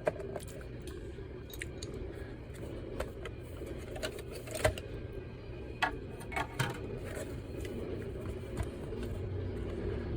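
Scattered small clicks and metallic taps of a screwdriver and loose parts as a PlayStation 5 Slim disc drive is unscrewed and taken apart, over a steady low hum.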